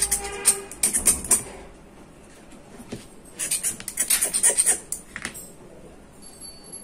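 Rapid scraping strokes on the metal housing of a 775 DC motor, about five or six a second, scraping off spilled superglue. There is a quick burst, a pause of about two seconds, then a second burst.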